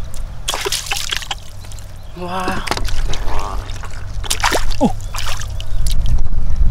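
Water splashing and sloshing in irregular bursts over a steady low rumble, with a brief voice-like call in the middle.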